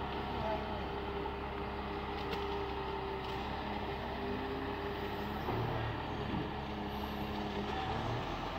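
Komatsu PC200 LC long-arm excavator's diesel engine running steadily under load as its hydraulics lift the long boom and bucket, with a few brief shifts in pitch a little past the middle.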